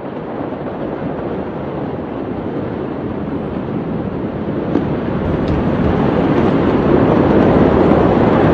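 Outdoor rushing noise on a phone microphone, wind and distant city ambience with a few faint pops, swelling gradually louder over the second half.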